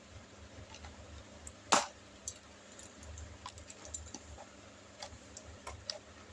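Scattered light clicks and taps of action-figure packaging being handled and opened, with one sharp, much louder click a little under two seconds in.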